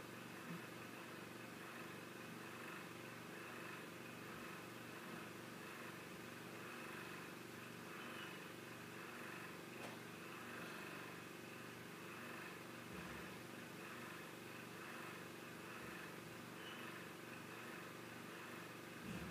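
Faint steady room hum with a few soft, isolated knocks, one near the start, one about ten seconds in, one near the end.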